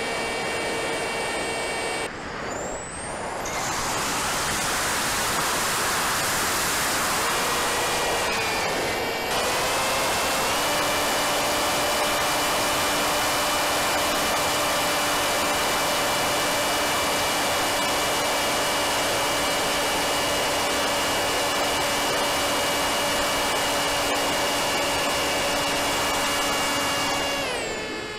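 Electric motor and propeller of a Wing Wing Z-84 flying wing in flight, with rushing wind noise. The motor's steady whine stops about two seconds in, leaving only the wind. It returns a few seconds later, rises in pitch, holds steady for a long stretch under throttle and falls away near the end as the throttle comes off.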